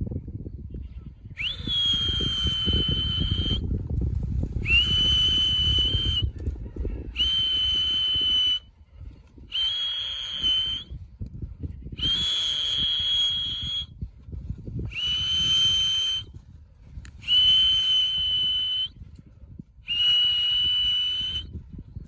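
A whistle blown in eight long, steady blasts with short gaps between them, each opening with a quick upward slide in pitch. It is a pigeon keeper's feeding call, bringing the returning young racing pigeons down into the loft.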